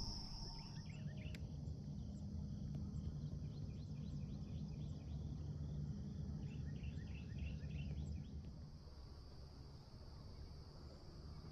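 Outdoor ambience. A steady high insect trill drops out about a second in and returns for the last few seconds. In between there are runs of quick small-bird chirps, all over a low rumble.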